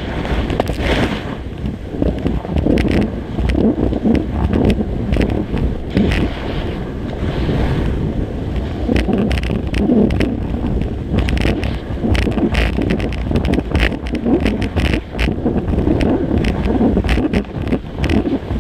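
Skis sliding and scraping over packed snow at speed, with wind buffeting a GoPro Hero 3 microphone mounted low by the ski boot. A steady rumble and rough hiss, peppered with frequent sharp clicks and rattles.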